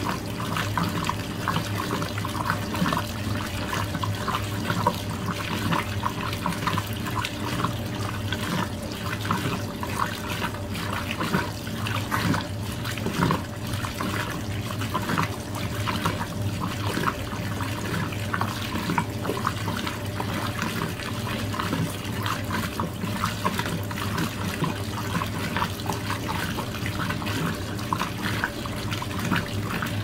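Brastemp Luxo Linea Venezia 4 kg washing machine with water running and splashing in its tub over a steady low hum.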